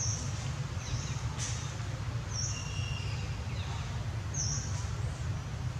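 Short, high bird chirps repeating every second or two, with fainter twittering in between, over a steady low background rumble.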